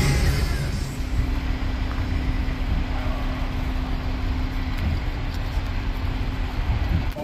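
Vehicle engine and traffic noise: a low rumble with a steady hum from about a second in until near the end, as music fades out at the start.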